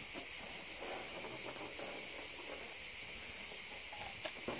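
Steady high-pitched buzzing of summer insects, with faint rustling and a couple of small clicks near the end.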